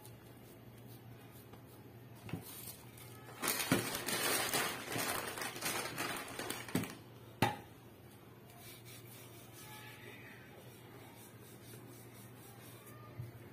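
Kitchen handling sounds on a wooden board over bread dough: quiet at first, then a few seconds of rustling and clatter from about three seconds in, ending in a sharp knock. Light knocks near the end as a metal rolling pin comes onto the board.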